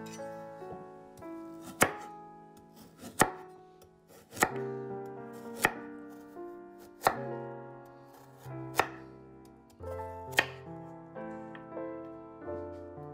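Chef's knife slicing through a raw carrot, each cut ending in a sharp knock on the wooden cutting board: about eight cuts at a slow, even pace. Soft background music plays underneath.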